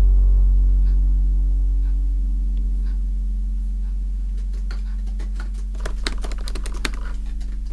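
Typewriter keys clacking in irregular strokes, scattered at first, then a quick run of keystrokes near the end, over a low sustained musical drone.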